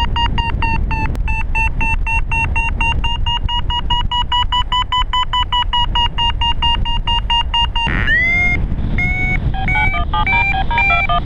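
Paragliding variometer beeping quickly, about five beeps a second, its pitch edging slightly up and then down: the tone a vario gives while the glider climbs in lift. Wind rushes over the microphone underneath. About eight seconds in, the beeping breaks into a gliding tone and then an irregular run of higher and lower beeps.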